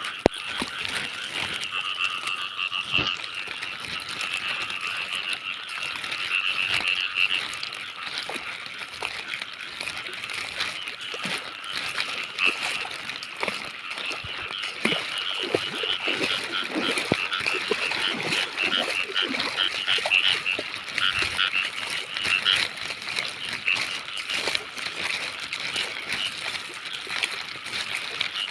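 Chorus of frogs calling without a break, many rapid pulsing calls overlapping, with scattered clicks and rustles.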